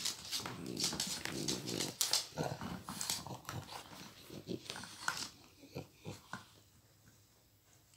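A dog growling low for about two seconds, then shorter grumbles mixed with clicks and squeaks of teeth gnawing a rubber chew toy, fading out near the end.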